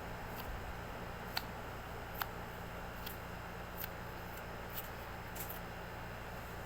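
Light, sharp clicks and taps from small items being handled, about one a second and irregular, over a steady low hum.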